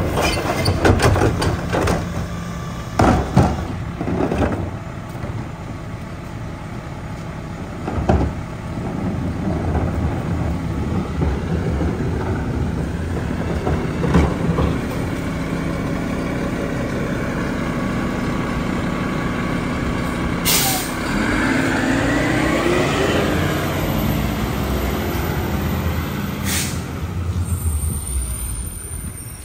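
Mack LEU garbage truck with a Leach rear-loader body: the cart tipper bangs as it dumps recycling carts, over the diesel engine running. About two-thirds through, an air brake hisses as it releases, and the engine revs up as the truck pulls away, with another air brake hiss near the end.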